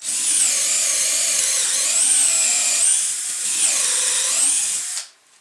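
Mafell A10m 10.8 V cordless drill boring a 10 mm hole in a spruce beam. The motor whine dips and recovers in pitch under load, then stops suddenly about five seconds in.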